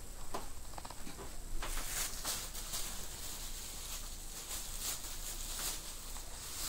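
Yorkshire terrier mother tending her newborn puppies on a disposable puppy pad: a run of soft, irregular rustles and clicks, several a second, starting about one and a half seconds in.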